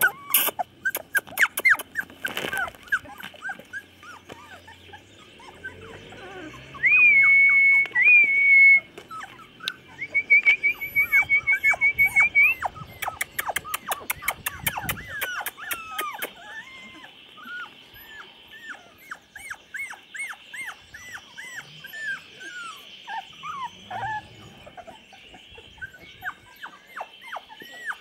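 A litter of young chocolate Labrador puppies whimpering and squeaking, many short, high, falling cries one after another. A long, steady, high whistling tone comes around seven seconds in, and a fast high trill follows soon after.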